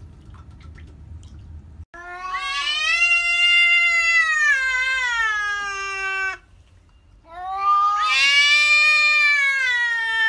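A cat yowling: two long, drawn-out wails of about four seconds each, the first starting about two seconds in and the second about seven seconds in, each sagging in pitch toward its end.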